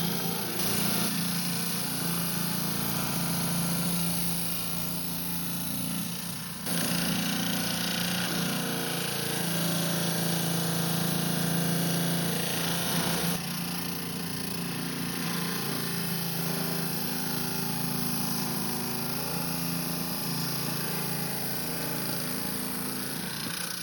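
Rock saw cutting through a stone. The motor hums steadily under the hissing grind of the blade in the rock, with the sound shifting abruptly twice.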